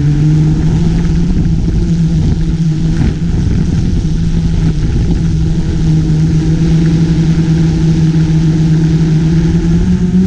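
GoPro Karma quadcopter's motors and propellers humming steadily in flight over a rough low rumble. The pitch steps down slightly at the start and rises again right at the end.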